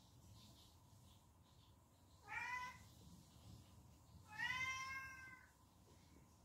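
A cat meowing twice: a short rising meow, then a longer, drawn-out meow about two seconds later.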